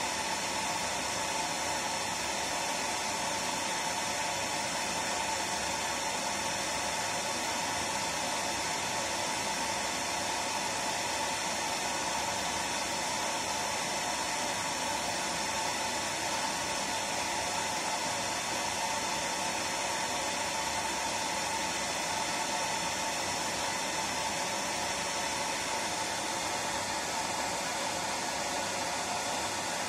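Hair dryer running continuously at a steady speed: an even, unbroken blowing hiss with a low motor hum underneath, used as white noise to lull a baby to sleep.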